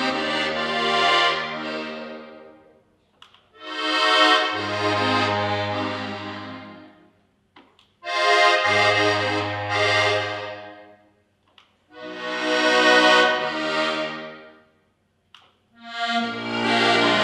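Diatonic button accordion played solo: slow, sustained chords over held bass notes, in phrases of three to four seconds that each swell and fade away, separated by short silences.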